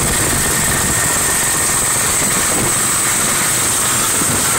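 Small lawn mower engine running steadily as a homemade outboard boat motor, turning the propeller.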